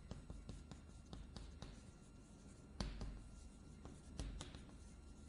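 Chalk tapping and scratching on a chalkboard as characters are written: a run of short, irregular taps and strokes, with a sharper tap about three seconds in.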